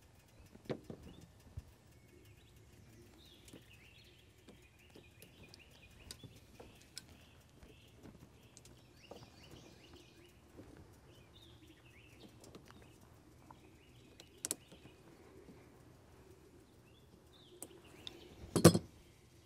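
Hands working rubber fuel hoses and an inline fuel filter, making scattered small clicks and rustles, with a sharp knock near the end. Birds chirp faintly throughout.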